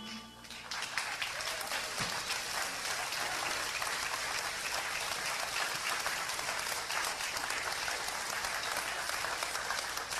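Concert audience applauding, swelling up about a second in as the band's last note dies away, then clapping steadily.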